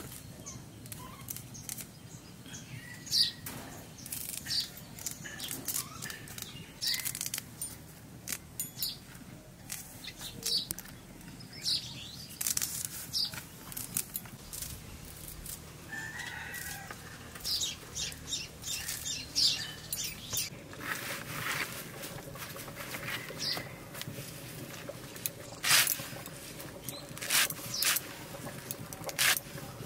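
Fresh moringa leaves being stripped from their stalks by hand: a run of short, crisp rustles and snaps. Toward the end the strokes come louder and sharper as a handful of leaves is cut against a blade over a bamboo tray. Birds chirp faintly in the background.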